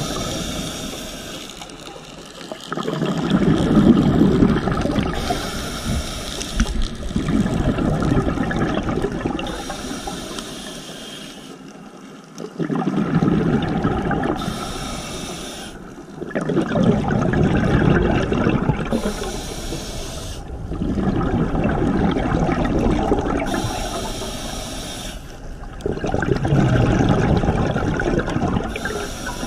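Scuba regulator breathing underwater: a short hiss on each inhale, then a longer gush of exhaust bubbles on each exhale. About six breaths come evenly, one every five seconds or so.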